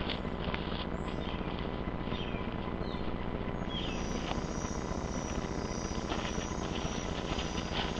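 Footsteps through dry grass and forest floor, short rustles and crunches, over a steady low hum.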